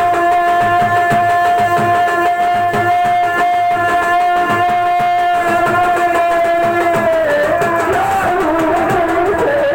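Music with fast, even drumming under one long held melodic note. About seven seconds in, the note breaks into a wavering melody.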